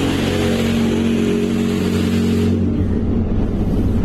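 A loud, continuous mechanical drone with a steady buzzing pitch and a hiss over it. The hiss drops away about two and a half seconds in while the low buzz carries on.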